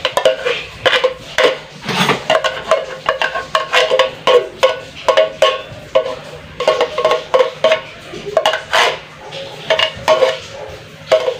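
Stainless steel mesh strainer holding drained canned fruit cocktail, shaken and worked with a spoon. It gives quick metallic clinks and rattles, several a second, with a short ring after each.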